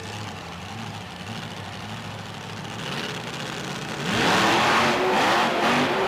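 Monster truck engine running low and steady, then about four seconds in revving hard and loud, its pitch climbing several times in quick succession.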